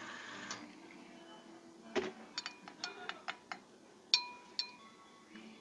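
Long metal bar spoon stirring tea in a double-walled glass, clinking against the glass: a knock about two seconds in, then a quick run of light clinks, and two louder ringing clinks about four seconds in. Soft background music underneath.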